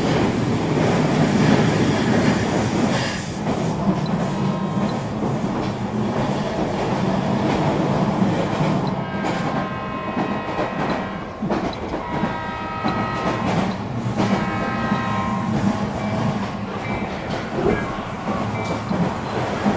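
HO scale model trains running on the layout: a steady rumble of wheels rolling and clicking over the track. In the middle, a locomotive horn sounds several times.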